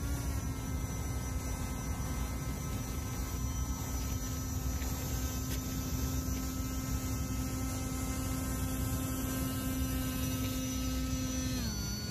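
Electric motor and caged propeller of a radio-controlled rescue airboat running at a steady speed, a steady hum that slides down in pitch near the end as it throttles back.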